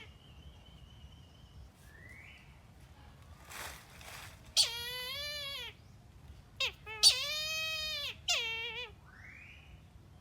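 Kite calling: four drawn-out, reedy calls in quick succession in the second half. The two longest last about a second each and drop in pitch at the end.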